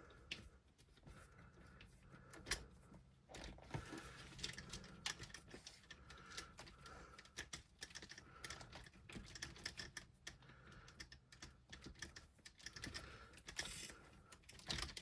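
Faint, irregular light clicks and taps of small parts and tools being handled while working on an RC crawler's wheel and shock.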